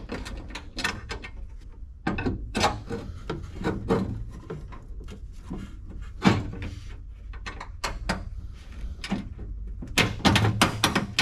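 Battery box being worked into place against the truck's core support: irregular scraping, rubbing and knocking, with a quick run of sharp knocks about ten seconds in.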